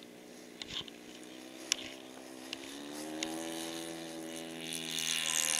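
RC model airplane's motor and propeller running up for takeoff into the wind: a whine whose pitch rises about three seconds in, growing louder near the end as the throttle opens.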